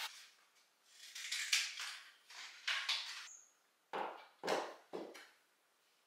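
A metal plastering knife scraping plaster over plasterboard joints: a series of hissy swipes, then three sharper, fuller strokes about half a second apart near the end.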